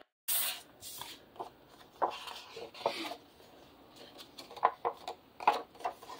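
Paper scoring tool scraping in short strokes along a ruler across paper, with paper rustling and several sharp taps in the second half as the ruler and tool are handled.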